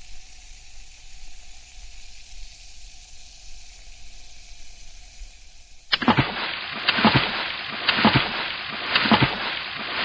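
Water sound effect. For about six seconds there is a faint, steady fizzing hiss. It then switches to louder bubbling and gurgling water, with a burst of bubbles roughly once a second.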